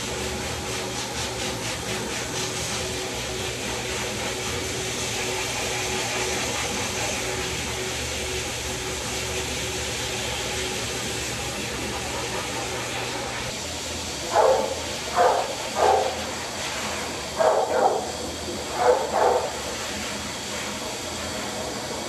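A dog barking: about seven short, sharp barks in two quick clusters, starting about two-thirds of the way in, over a steady motor hum.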